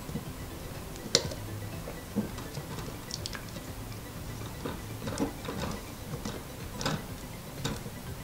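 Small screwdriver tightening the M3 mounting screws of a brushless drone motor through a carbon-fibre frame arm: light, irregular clicks and ticks of the tool and screw heads, about one a second.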